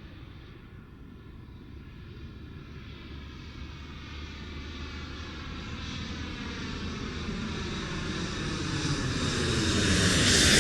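Aircraft engine running and growing steadily louder, its pitch rising slowly, as of a plane drawing near.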